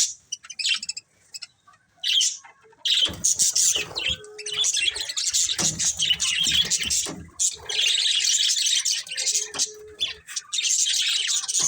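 Budgerigars chattering and chirping in rapid high notes: only a few scattered chirps at first, then nearly unbroken chatter from about three seconds in.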